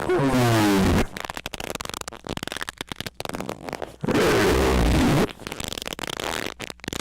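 Loud, distorted squeaking: a squeak falling in pitch in the first second and another about four seconds in, with crackling clicks between them.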